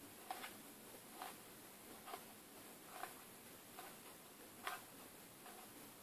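Stack of Match Attax trading cards being flicked through by hand, one card at a time: a faint, light tick about once a second as each card is slid off the stack.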